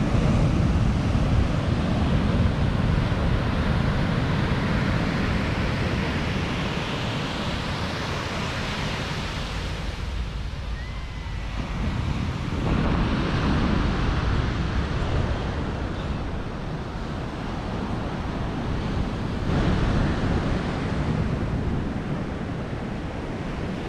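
Ocean surf breaking and washing on a beach, coming in swells with a lull about halfway, with wind rumbling on the microphone.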